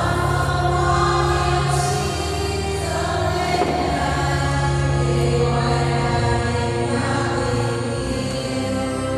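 Church choir singing a slow hymn, with long held notes over a steady accompaniment.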